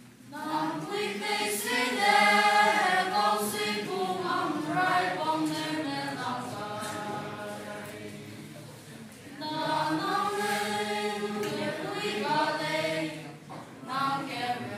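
A group of young voices singing together as a choir, without instruments. About eight seconds in the singing breaks off briefly, then the next phrase begins.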